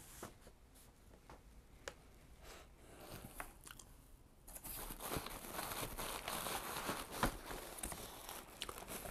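Hands rummaging in a cardboard box: paper and packing material rustling and crinkling, with a few light knocks, becoming steadier and louder from about halfway through as a boxed figure is lifted out.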